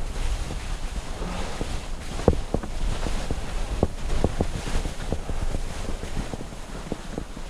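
Skis sliding and scraping over spring snow, with wind rushing over the microphone. Scattered irregular clicks and knocks run through it.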